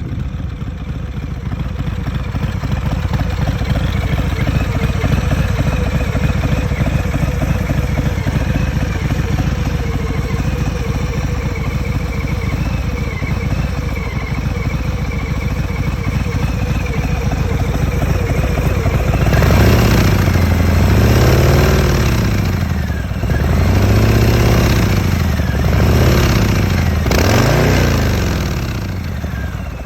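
2020 Harley-Davidson Sport Glide's Milwaukee-Eight 107 V-twin, fitted with a Thorcat Mad Max X-Torque exhaust, idling steadily. From about two-thirds of the way in it is revved several times, each rev rising and falling back, then it returns to idle near the end.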